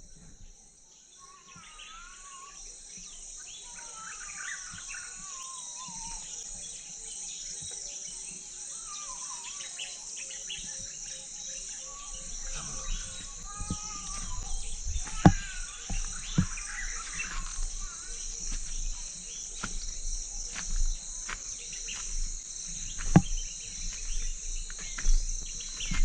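Steady chorus of insects, crickets among them, with birds calling over it in short whistled glides during the first half. Scattered sharp knocks come in the second half, the loudest about fifteen and twenty-three seconds in.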